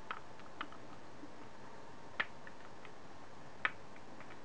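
A few short, sharp clicks from a cheap pen-style laser pointer being handled and tried, the two loudest about two and three and a half seconds in.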